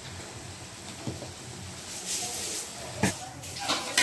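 Chicken pieces frying in a metal wok with a low sizzle, and two sharp clinks of a metal ladle against the wok near the end as the chicken is scooped out.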